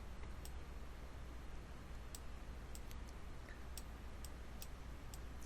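Faint computer mouse clicks, about a dozen at irregular intervals, over a low steady electrical hum and room hiss.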